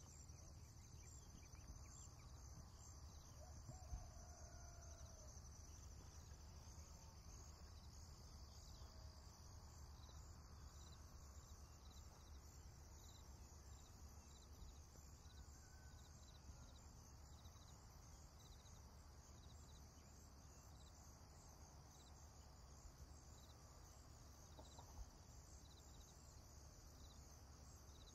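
Near silence: faint, regular high-pitched insect chirping over a low steady hum.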